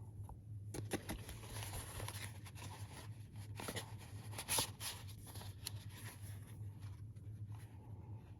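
Handling noise from items being sorted through by hand: scattered light rustles and clicks, with one sharper knock a little past halfway, over a low steady hum.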